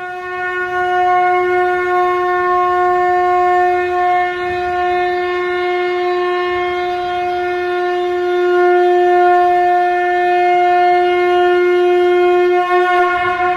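A conch shell (shankh) blown in one long, steady blast lasting about thirteen seconds, ending abruptly.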